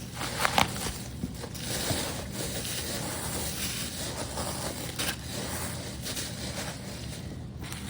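Packing material rustling and crackling as loose die-cast toy cars are handled, with a few sharp clicks.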